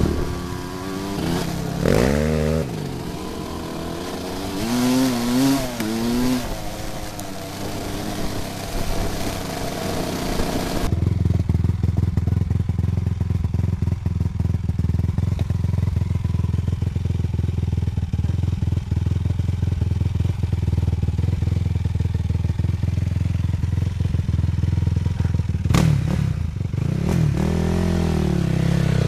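2004 Yamaha YFZ450's single-cylinder four-stroke engine revving up and down as the quad is ridden, for about the first ten seconds. Then, after an abrupt change, a quad engine idles steadily. A short rev up and back down comes near the end.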